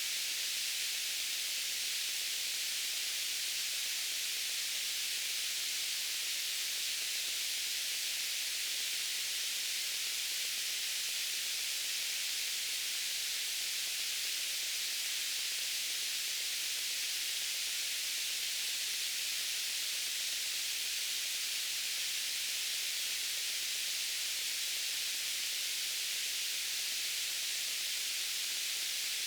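Steady white noise: an unbroken hiss, mostly high in pitch, that holds level and does not change.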